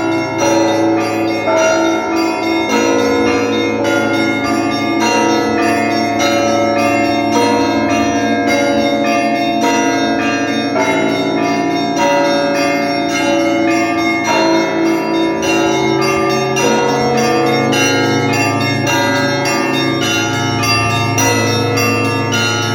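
Russian Orthodox church bells rung in a full festal peal: the small bells repeat a quick figure of about four strokes a second over the deeper ringing of the larger bells, their tones overlapping continuously.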